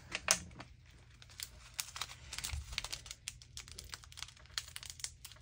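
Small plastic bag of sequins crinkling and rustling as it is handled and opened, with irregular light crackles and clicks.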